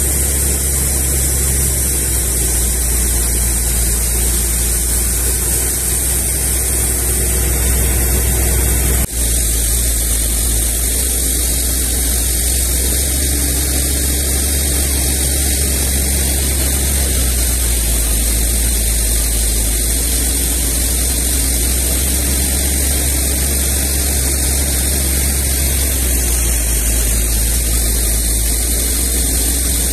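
Truck-mounted water-well drilling rig running at a steady drone, with muddy water spraying around the drill pipe at the wellhead as the hole is flushed. There is a brief dip in the sound about nine seconds in.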